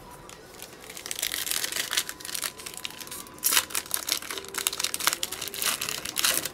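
Foil wrapper of a 2020 Mosaic football trading-card pack crinkling and tearing as it is ripped open by hand. The crinkling starts about a second in, with the loudest rips about halfway through.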